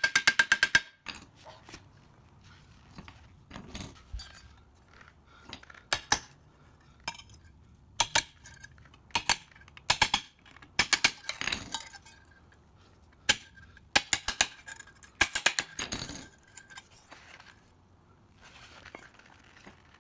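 Claw hammer striking the thin-gauge steel of a cut square-tube piece resting on a wooden block, shaping its curved edge: sharp metallic taps with a brief ring. A quick run of blows comes at the start, then scattered groups of taps with short pauses between them.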